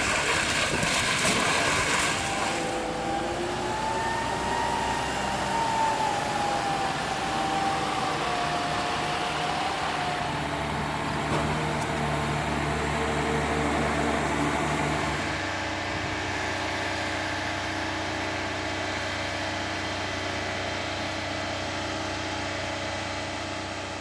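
Heavy diesel engine of site machinery running steadily, with a wavering whine in the first half and a change in its hum about two-thirds through.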